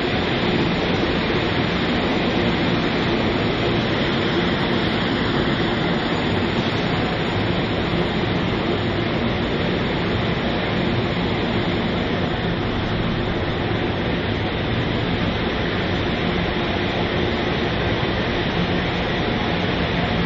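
Steady hum and rushing noise of NJ Transit passenger trains at a station platform, constant throughout with no distinct events.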